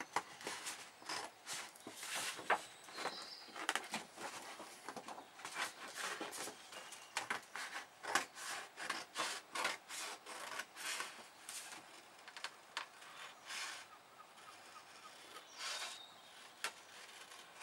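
Scissors cutting stiff card: a run of short, crisp snips and the rustle of the card being turned in the hands, irregular and thinning out near the end.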